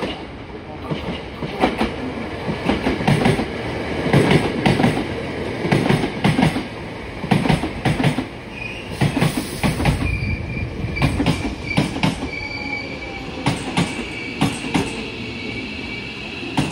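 Hankyu 8000-series electric train pulling into the platform: its wheels clack in quick, irregular beats over rail joints and points. From about halfway through, a steady high-pitched wheel squeal joins them as the train slows.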